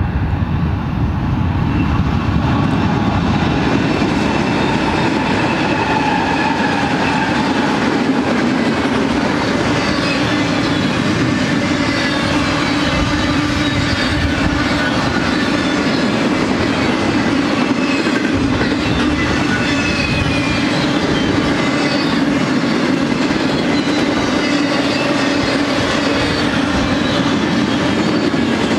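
BNSF GE ES44DC diesel locomotives pass close by, then a long double-stack intermodal train rolls past with steady wheel-on-rail clatter. The sound swells over the first couple of seconds as the locomotives arrive, then holds steady.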